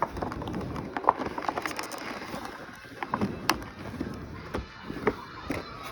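Plastic and cardboard toy packaging being handled and opened by hand: irregular crinkling, rustling and sharp clicks of plastic, with a few louder snaps about a second in and about three and a half seconds in.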